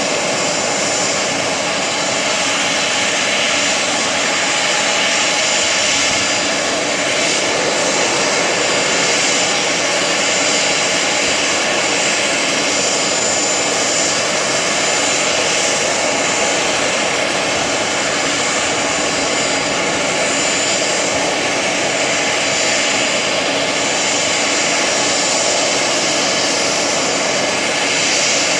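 Bombardier CRJ-200 regional jet's General Electric CF34 turbofan engines running steadily: a constant jet rush with a thin high whine over it.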